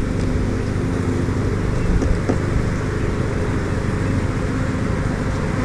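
Steady hum of a honeybee colony buzzing around an opened hive, with a single faint click a little over two seconds in.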